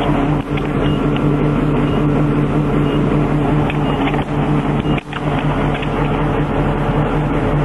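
Steady drone of a vehicle's engine and road noise, heard from inside the cab while driving. The level dips briefly about five seconds in.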